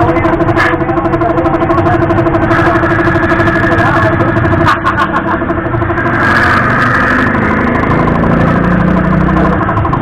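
A motorcycle engine idling steadily, with a few light clicks over it.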